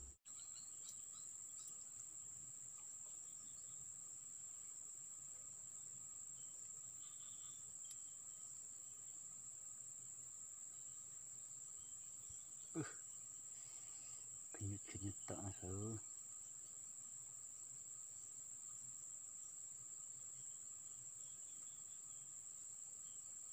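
Faint, steady high-pitched drone of insects, crickets or similar, holding one unbroken pitch throughout. A brief low voice cuts in twice, around the middle.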